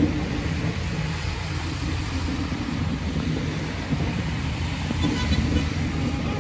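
Steady low rumble of road traffic on a snow-covered road, with wind on the microphone.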